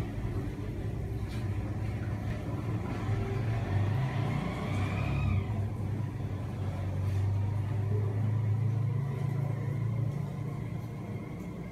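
Steady low rumble of motor traffic, with a faint rising whine between about three and five seconds in, like a vehicle speeding up.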